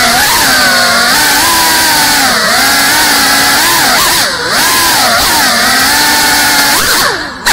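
FPV racing drone's brushless motors and propellers whining, the pitch rising and falling as the throttle changes. The pitch dips low about four seconds in, and the whine almost cuts out just before the end, then comes back.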